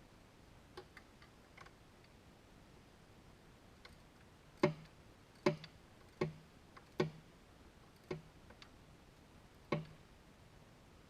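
Hand tools clicking and knocking on metal: a few faint clicks, then six sharper knocks, each well separated, about a second apart.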